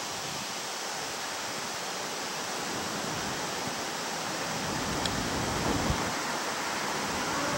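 Izukyu 8000 series electric train approaching along the track, its low rumble building from about three seconds in over a steady background hiss.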